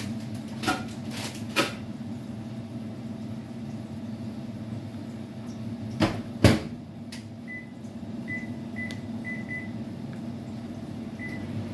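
Steady hum of a running microwave oven and other kitchen appliances, with several knocks and clatters, the loudest about six and a half seconds in, then a run of about six short high electronic beeps like keypad presses on the microwave.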